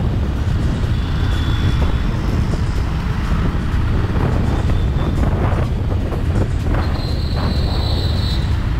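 Harley-Davidson Street Rod 750's liquid-cooled V-twin engine running steadily as the motorcycle rides through city traffic, with a dense low rumble.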